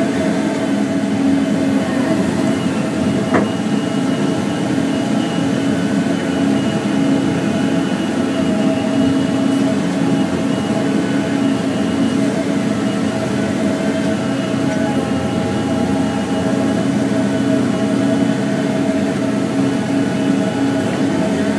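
Diesel engine of a Volvo tracked feller buncher with a Satco 630 felling head, running steadily.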